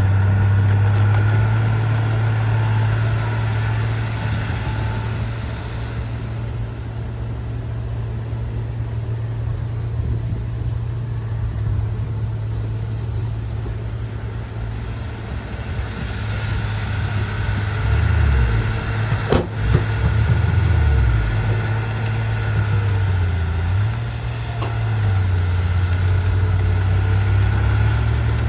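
Bulldozer's diesel engine running steadily, its pitch dipping and recovering a few times in the latter part as the load changes. A single sharp knock comes about two-thirds of the way through.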